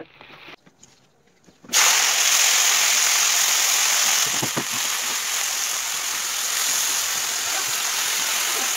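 Fresh pumpkin shoots hitting hot oil in a wok and sizzling; the sizzle starts suddenly about two seconds in and then runs on steadily, a little quieter after about four seconds. A few light spatula clicks come before it.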